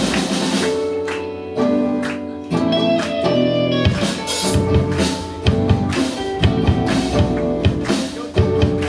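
Live rock band (electric guitars, bass and drum kit) playing a song. From about one to four seconds in the drums drop back under held guitar chords, then the full band comes back in with a steady beat.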